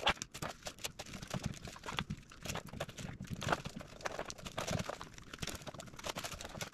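Nylon webbing handled on a tabletop: small irregular scuffs, rustles and taps as the MOLLE strap of an M4 magazine pouch is pushed through the loops of a battle belt.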